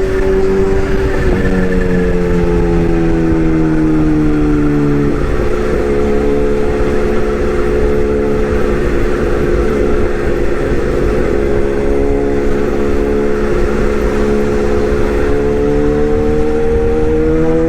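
An excavator running and working. Its engine note sinks in pitch over the first few seconds, stays low and rough through the middle, then climbs back up near the end.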